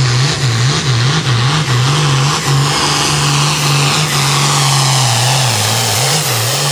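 Hot farm pulling tractor's turbocharged diesel engine running at full throttle under heavy load as it drags the sled. Its note swings quickly up and down over the first two seconds or so and again near the end, holding steadier in between, with a high whine above it.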